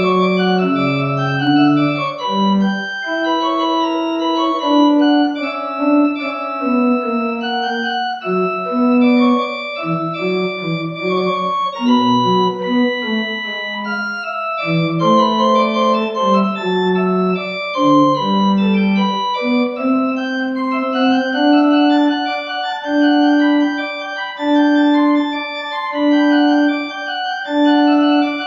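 Organ music: held chords under a moving melody, the notes sustained without fading; near the end one low note repeats about every second and a half.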